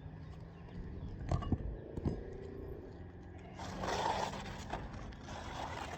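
Handling of a laminated architectural asphalt shingle on a roof: a couple of knocks, then scraping from a little past halfway as the shingle is slid back into place under the course above.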